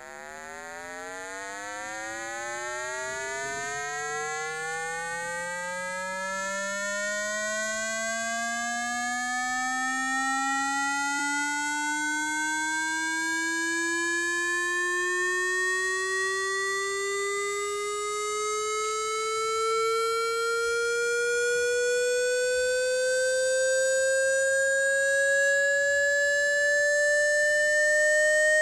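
Speaker-cleaning test tone: a buzzy electronic tone with strong overtones that glides slowly and steadily upward in pitch the whole time. It fades in at the start and keeps growing slowly louder. It is a frequency sweep played through a phone speaker to vibrate water and dust out of it.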